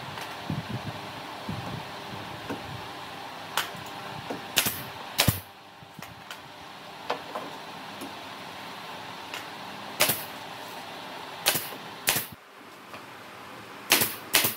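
Irregular sharp knocks of wooden boards being handled and fitted against a wooden car body, about nine in all, a second or more apart, over a steady background hiss that drops away about five seconds in.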